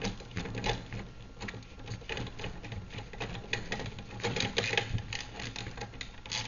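Wrench tightening a bolt into the end of an aluminum rod: a run of quick, irregular metallic clicks.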